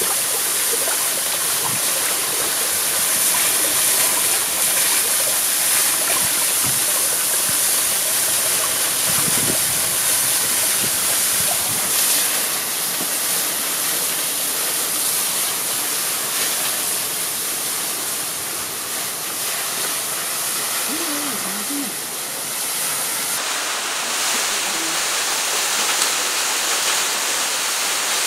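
Steady rushing of a stream and waterfall, water pouring over rocks. The tone of the rush shifts slightly a few seconds before the end.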